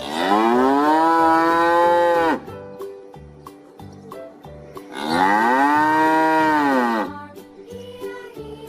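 A cow mooing twice: two long moos of about two seconds each, the pitch rising at the start and sagging at the end, with a few seconds' gap between them.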